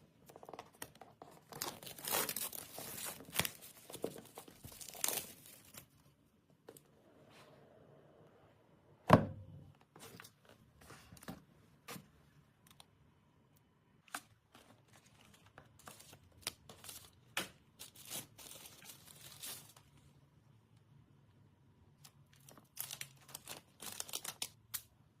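Smartphone packaging being opened and handled: plastic wrap tearing and crinkling for the first few seconds, one loud thump about nine seconds in, then scattered clicks and rustles of the box and its contents.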